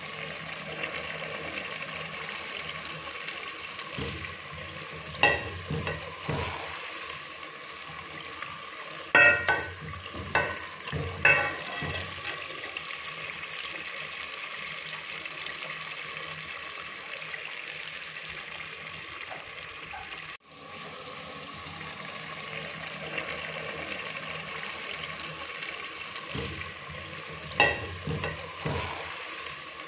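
Potato pieces in masala sizzling steadily in a stainless steel pot on a gas flame. A steel ladle clinks and scrapes against the pot as they are stirred, in short clusters about five seconds in, around ten seconds in, and near the end.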